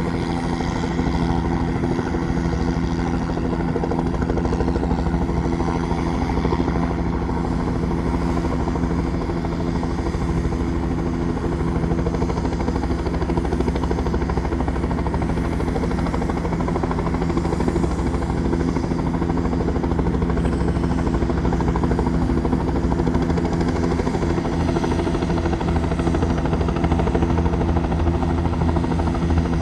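Helicopter running on the ground before takeoff: a steady engine and rotor sound holding several constant tones, with the low end getting stronger over the last few seconds.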